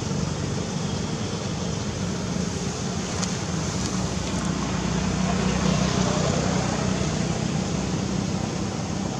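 Steady low hum under an even hiss of background vehicle noise, with a couple of faint clicks in the middle.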